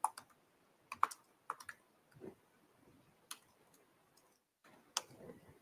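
Faint, scattered keystrokes on a laptop keyboard: a handful of separate sharp key taps with gaps of up to a second or more between them.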